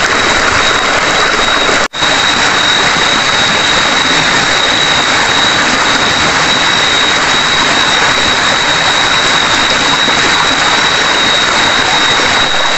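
Steady loud rush of a nearby stream, with a constant high-pitched whine of night insects over it. The sound drops out for an instant about two seconds in.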